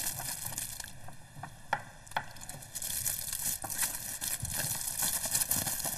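Quiet kitchen work: a steady faint hiss with a few light clicks and soft taps of hands and utensils at the counter.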